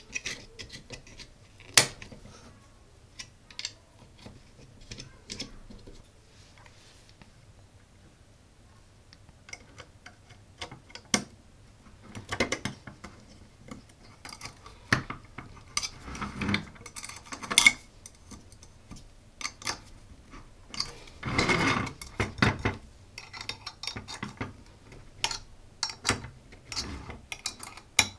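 Small metal parts clicking and clinking against an aluminium robot chassis during hand assembly: brass standoffs being fitted and nuts turned with a small flat steel spanner. Irregular light clicks, with a few short stretches of denser rattling later on.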